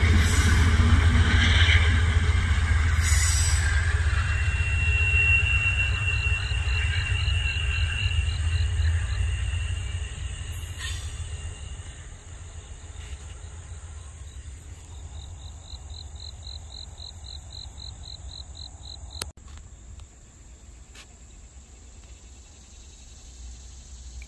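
Amtrak passenger train rolling away on the rails: a steady low rumble of wheels on track with a thin high wheel squeal, fading out over the first ten seconds or so. Insects keep up a rapid pulsing chirp behind it, about five pulses a second, until the sound changes abruptly a few seconds before the end.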